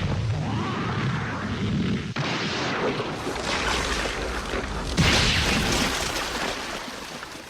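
Neon Genesis Evangelion anime sound effect for Eva Unit 02: a heavy, rumbling, explosion-like crash that starts suddenly. A fresh hit comes about two seconds in and a louder, brighter one about five seconds in, before it fades.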